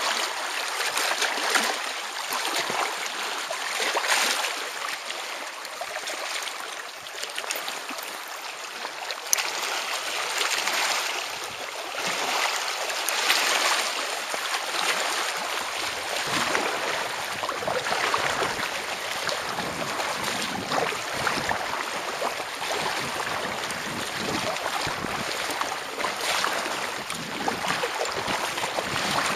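Small waves lapping and splashing against the kayak's hull and the shore rocks, in uneven swells every second or two.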